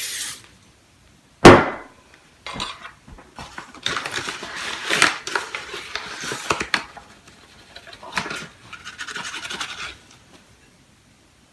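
Brief hiss of a butter cooking spray at the start, a sharp knock about a second and a half in, then scraping and light clinking of a utensil against a metal cake pan as the greased pan is dusted with flour.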